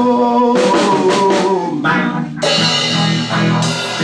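Rock band music: electric guitar and drum kit. A held note rings through the first second or two under a run of drum hits, then new guitar chords are struck twice in the second half.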